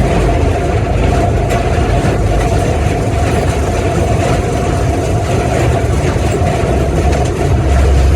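Zoomobile tour tram running steadily, heard from on board: a continuous low engine rumble with a steady whine over it.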